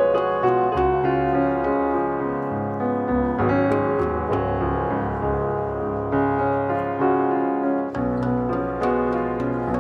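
Background piano music: a steady flow of struck notes over chords that change a few times.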